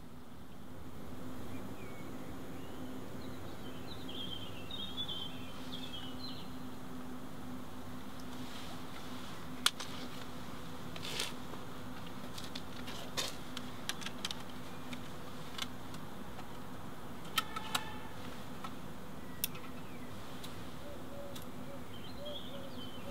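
Quiet ambience: a steady low hum with faint high chirps, broken by scattered small sharp clicks. A close pair of clicks about three-quarters through fits a cigarette lighter being flicked.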